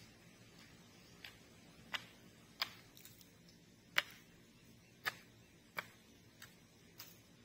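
A series of about eight sharp knocks or clicks at uneven intervals, roughly half a second to a second apart.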